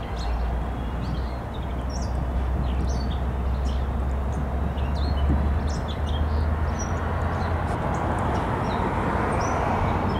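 Distant diesel-hauled freight train crossing a long stone-arch bridge: a steady low rumble that builds toward the end. Birds chirp throughout.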